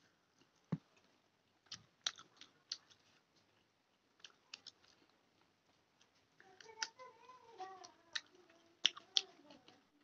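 Close-up chewing and biting of fried chicken pakora, with scattered crisp crunches and mouth clicks. A short pitched sound, like a closed-mouth hum, comes about two-thirds of the way in.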